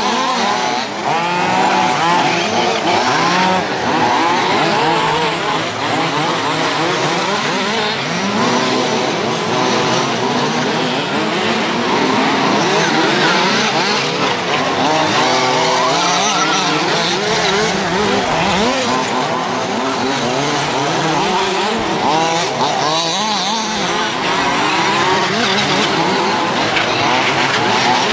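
Several large-scale RC off-road buggies racing, their small two-stroke petrol engines revving up and down over one another, with pitches that keep rising and falling.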